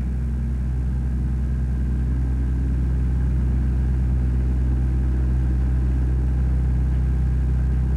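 Steady low hum with a faint hiss, unchanging throughout: the background hum of the recording, which carries on under the narration.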